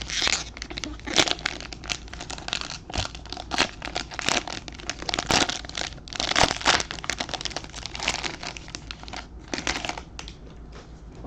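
Plastic wrapper of a trading-card pack crinkling in irregular bursts as it is handled and torn open, tapering off about ten seconds in.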